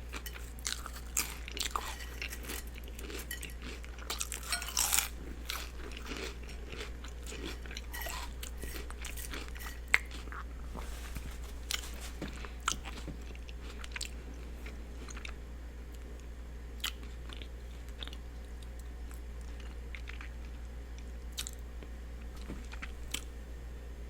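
Close-miked chewing and biting of a turkey and cheese sub with lettuce and onions: wet crunches and mouth clicks, busiest in the first half and thinning to occasional clicks later, over a steady low hum.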